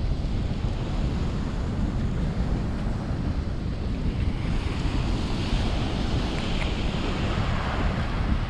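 Ocean waves washing onto the shore, with strong wind buffeting the microphone. The hiss of a wave's wash swells up about halfway through.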